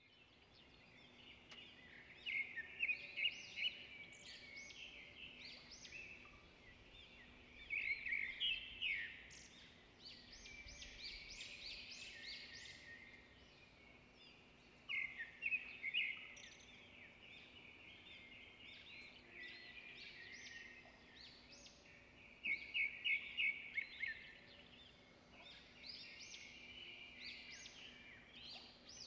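Birds chirping and singing, with bursts of quick repeated notes every few seconds.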